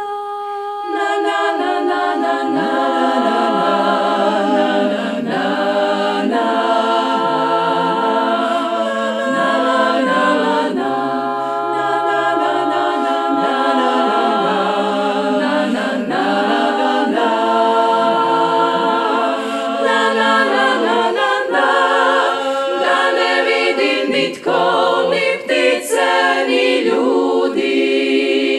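Female klapa, a Dalmatian a cappella group of women's voices, singing in close multi-part harmony with vibrato, with two short breaks between phrases near the end.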